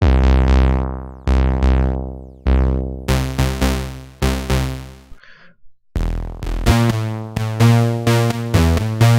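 A low synth lead layer of two stacked synthesizers run through distortion, playing a rhythmic riff of punchy notes that die away. It stops for about a second midway, then starts again.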